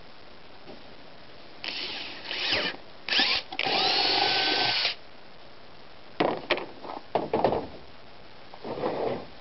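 Cordless drill with a twist bit boring through a plastic bucket lid in a few short bursts, then running steadily for just over a second, its whine rising and then holding. Several sharp knocks follow as the lid is set down on the pickup's tailgate.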